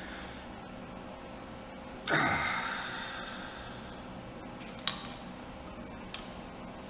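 Wrench turning a nut welded onto a broken bolt in a cylinder head, working the bolt loose. About two seconds in there is one loud sound that falls in pitch and fades over about a second, and later two short sharp clicks.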